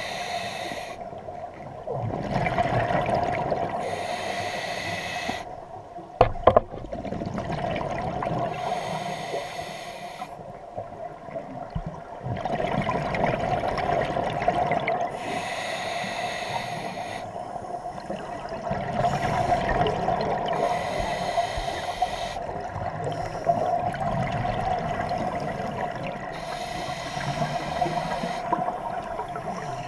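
Scuba regulator breathing underwater: a hiss with each breath and a rush of exhaled bubbles, repeating every few seconds. One sharp knock about six seconds in.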